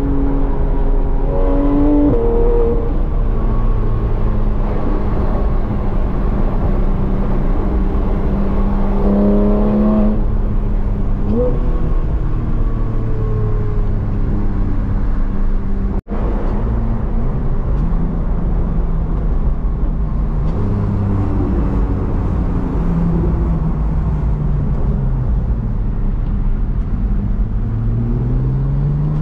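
Porsche 991 GT3 RS's 4.0-litre flat-six heard from inside the cabin while driving, its note rising and falling with the throttle over steady road and tyre rumble. The sound cuts out for an instant about halfway, and the engine pitch climbs again near the end.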